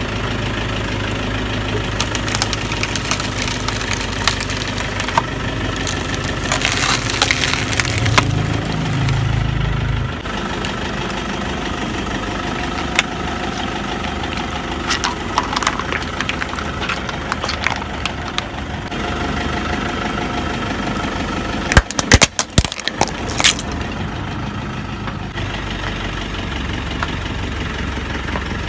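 A car's engine idling while its tyre rolls over and crushes objects one after another: styrofoam blocks, plastic cups of drink and a plastic bottle. Scattered cracks and crunches, with the loudest burst of sharp cracks about two-thirds of the way through.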